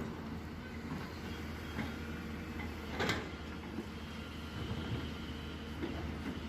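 Hyundai excavator's diesel engine running steadily, with a few short knocks and clanks, the loudest about three seconds in.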